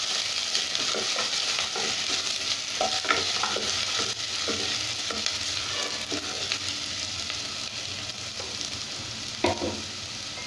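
Chopped garlic and ginger sizzling in hot oil in a nonstick pan, stirred with a wooden spatula that knocks and scrapes against the pan now and then, most clearly near the end.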